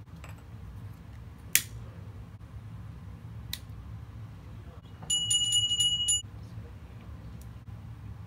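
Small puja hand bell rung rapidly for about a second, a clear high ringing that stops abruptly. A sharp click comes about a second and a half in.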